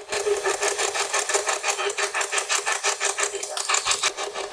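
Spirit Box radio scanner sweeping through stations: a rapid, even chopping of radio static many times a second over a steady tone, with a brighter burst of hiss near the end.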